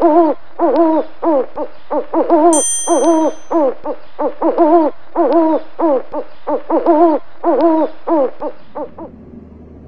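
Owl hoots repeated in an even, looped rhythm, a call about every three-quarters of a second, as an intro sound effect. A bright, high chime sounds about two and a half seconds in, and the hooting stops near nine seconds, leaving a faint low hum.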